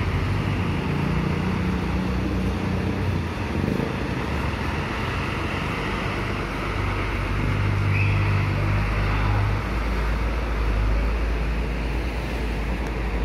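Diesel engines of large intercity coaches running as a bus pulls slowly past at close range, a low steady drone that grows louder for a few seconds past the middle.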